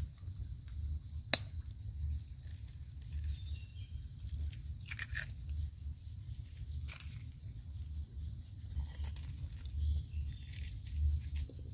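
Boiled balut duck eggs being peeled by hand: scattered clicks and crackles of eggshell cracking and tearing away, the sharpest click about a second in. A steady low rumble runs underneath.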